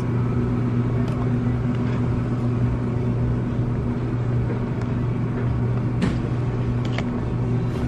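Steady low hum with one constant pitch over an even background rumble, the room noise of a large store. A few faint clicks about a second in and again near the sixth and seventh seconds.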